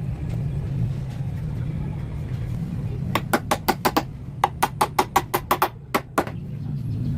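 A steady low hum, then a fast run of about fifteen sharp knocks or taps lasting about three seconds, several a second.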